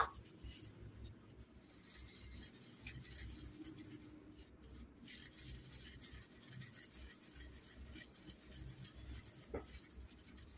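Faint sound of ground hibiscus powder being sifted by hand through a small plastic sieve over a plastic bowl, with one brief louder sound at the very start.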